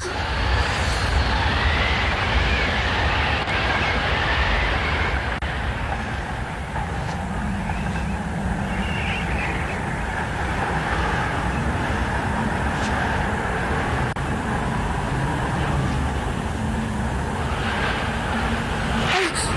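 Steady wind of a snowstorm blowing, a continuous rushing rumble with no break.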